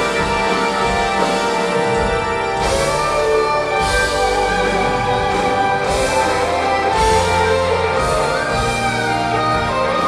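Live progressive rock band playing: electric guitar over sustained keyboard chords and a bass line that moves from note to note, with cymbal crashes every second or two from about three seconds in.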